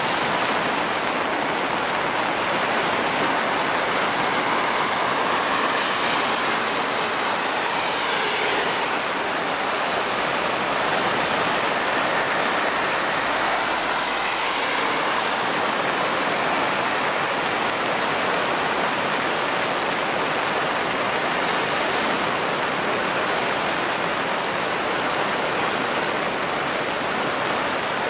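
Floodwater of a river swollen by typhoon rain rushing past, a steady, even noise of churning water.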